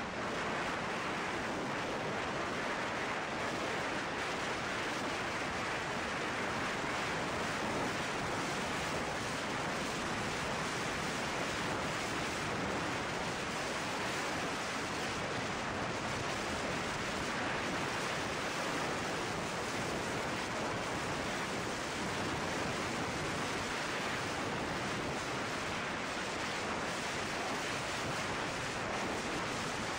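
Steady rush of wind noise over the microphone of a motorcycle-mounted camera cruising at highway speed, an even hiss with no engine note standing out.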